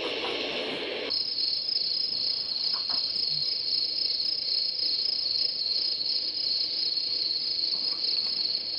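White-noise hiss that cuts off about a second in, followed by crickets chirping in a steady, high, fast trill.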